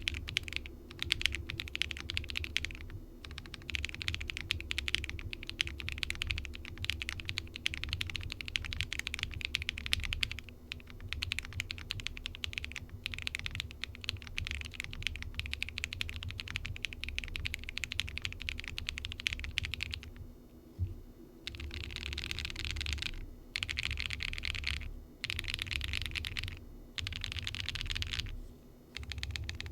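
Typing on a Windx R2 mechanical keyboard with factory-lubed Alflion Melody linear switches on a polycarbonate plate: fast, continuous runs of key clacks, broken by short pauses in the last ten seconds.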